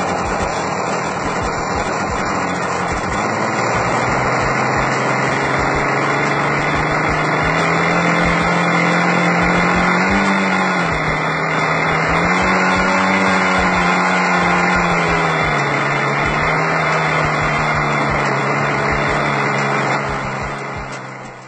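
Magnum .46 two-stroke nitro glow engine of an RC model plane running steadily and loud, its pitch rising and falling a few times in the middle, then fading near the end.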